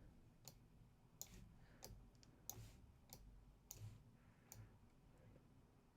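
Faint computer mouse clicks, about one every two-thirds of a second, over quiet room tone.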